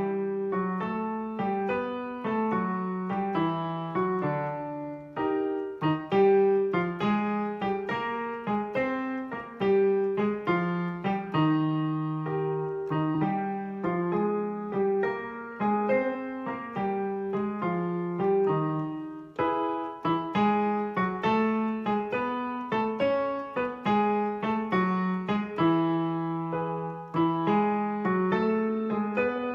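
Piano playing the accompaniment to a vocal pitch exercise: short patterns of separate notes leaping in thirds, repeated over and over on new starting pitches, with one note of each pair held longer than the other.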